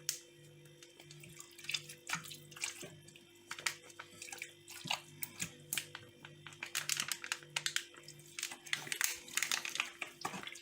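Garlic powder being shaken from a spice shaker onto raw chicken, a run of short, irregular rattling taps. A faint steady hum sits underneath.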